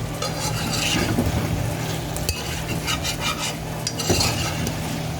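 Curried chicken frying down in a pot on low heat, sizzling as a spoon stirs it and scrapes the pot in repeated short strokes, before any water has gone in.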